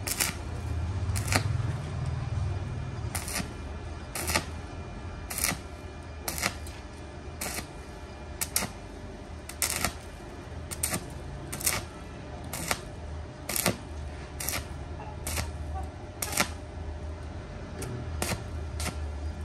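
Stick (arc) welder laying short tack welds on thin sheet steel: a brief sharp crackle about once a second as the arc is struck and broken, over a low steady hum.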